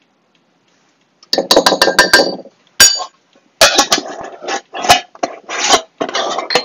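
A measuring cup scraping and clinking inside a glass jar of brown sugar as the sugar is scooped and packed. Runs of scraping and clinks start about a second in, with a single sharp knock a little later.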